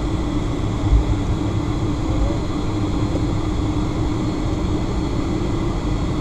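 Boeing 757-300's engines running at taxi power, heard inside the cabin as a steady hum over a low rumble. A single low thump comes about a second in.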